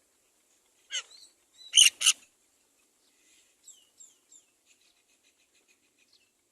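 Great myna calling. One loud harsh call about a second in, then a louder pair just after two seconds, followed by a run of fainter short chirps that each slide downward.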